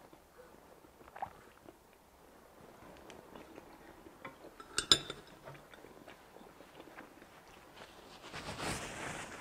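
Chopsticks picking food out of a pan, with faint scattered taps and one sharp ringing clink about halfway through, then soft eating sounds near the end.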